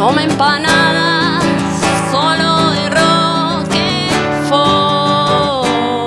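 A woman singing a slow melody in long held notes with vibrato, accompanying herself on a strummed classical guitar.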